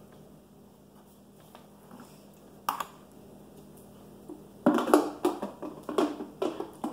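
Applesauce jar being opened and handled at the table: a sharp click a little under three seconds in, then a quick run of clinks and scrapes over the last two seconds.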